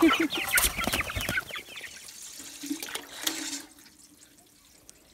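Meat chickens clucking around the feeder for about the first second, then water from a garden hose running into a galvanized metal waterer, which cuts off near the end.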